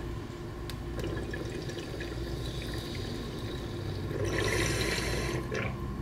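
Water bubbling in a mason-jar bong as smoke is drawn through it. The bubbling swells louder and brighter for about a second near the end, as the bowl piece is pulled to clear the jar.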